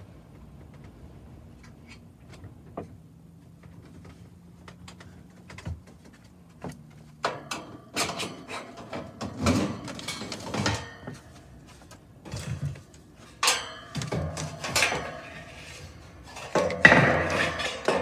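Sheet-metal access panel of a gas furnace unit being handled and pulled off: a faint low hum and a few small clicks, then from about seven seconds in a run of metal clanks, rattles and thunks, loudest near the end.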